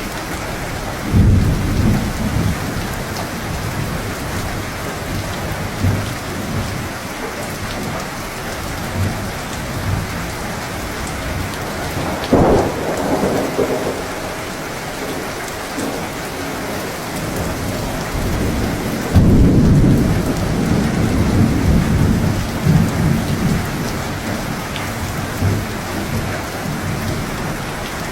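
Steady heavy rain on a surface with thunder rumbling through it: sudden low rolls of thunder about a second in, around twelve seconds in, and a louder, longer roll from about nineteen seconds in.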